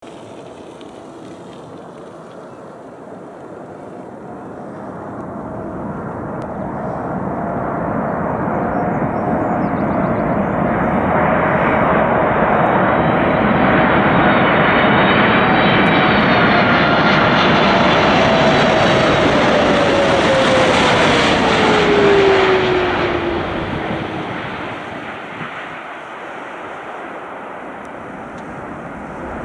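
Boeing 747-8's four GEnx turbofans on low final approach: the jet noise swells to a peak as the aircraft passes close by, with an engine whine that glides down in pitch, then fades as it moves off down the runway.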